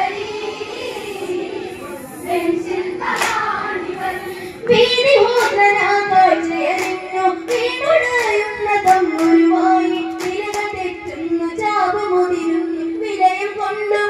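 Women and girls singing a Malayalam Onam kali folk song in unison, with rhythmic hand claps keeping time. The singing gets louder and the regular claps set in about five seconds in.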